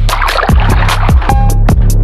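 Background music with a heavy bass line and a steady beat, about two beats a second.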